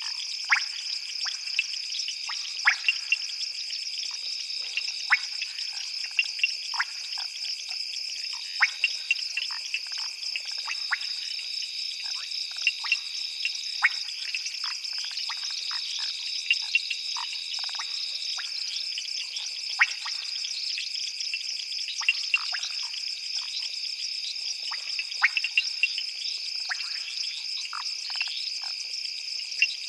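Night chorus of frogs and insects: a steady high insect trill, with another long trill coming and going, and frogs giving many short, sharp calls scattered throughout.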